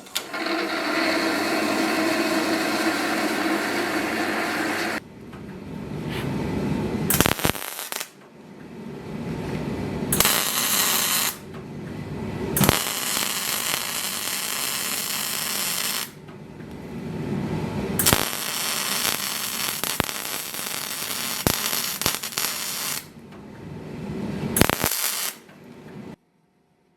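Steel blade being forged: a series of short clips of loud, noisy workshop sound, each cut off abruptly, with a few single sharp metal strikes among them.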